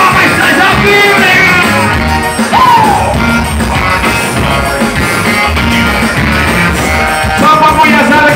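Live forró band music, loud through a PA system, with a male singer's voice sliding over it in the first few seconds.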